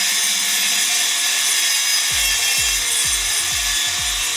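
DeWalt jobsite table saw running and ripping a sheet of half-inch plywood, a loud, steady cutting noise.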